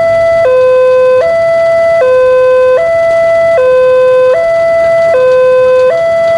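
Indonesian level-crossing warning alarm sounding from the horn loudspeaker on the crossbuck post: an electronic two-tone signal alternating evenly between a higher and a lower tone, each held just under a second. It signals that a train is approaching and the barrier is down.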